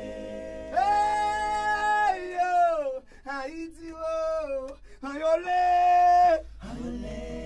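A cappella singing by a small group of voices with no instruments. Long held notes come in three phrases, each sliding down in pitch at its end, with short breaths between.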